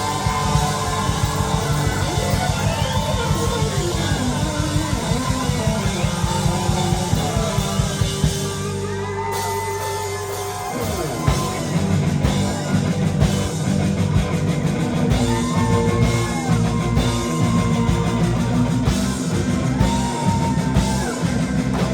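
Live rock band playing an instrumental stretch: electric lead guitar soloing with bent, gliding notes over drums and bass. The cymbals drop away for a couple of seconds about nine seconds in, then the full band crashes back in near eleven seconds.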